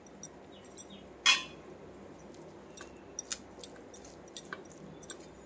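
A metal spoon clinking and knocking against the pot while cooked beetroot is stirred into rice. There is one sharper knock about a second in, then scattered lighter clicks.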